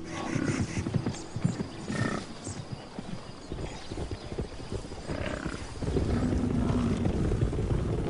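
American bison herd on the move: irregular clatter and thud of hooves, with a few short animal calls and a lower, longer call about six seconds in.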